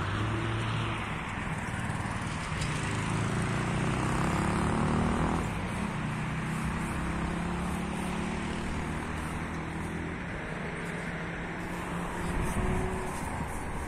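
Road traffic: a vehicle's engine grows louder and then drops away about five seconds in, over steady traffic noise.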